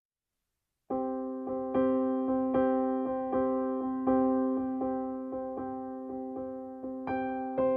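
Background keyboard music, starting suddenly about a second in after silence: a gentle run of struck notes, two or three a second, each fading over a held chord.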